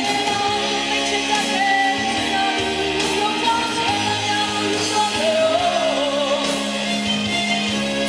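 A woman singing a lively pop-rock song into a microphone, backed by a live band of drums, electric guitar and keyboard.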